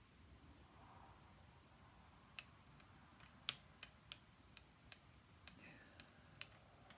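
Faint, irregular light clicks and taps, about ten of them, from small tools or parts being handled on a workbench. They begin a couple of seconds in, against quiet room tone.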